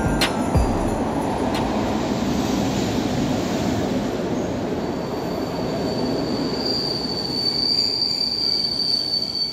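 Passenger train of PKP Intercity coaches rolling into an underground station platform, a steady rumble of wheels on rail as the coaches pass. About halfway through a high, steady wheel squeal sets in as the train slows.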